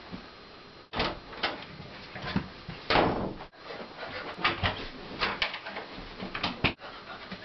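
Wooden interior doors opening and banging shut, a string of sharp knocks and thumps chopped by quick edits, the loudest bang about three seconds in.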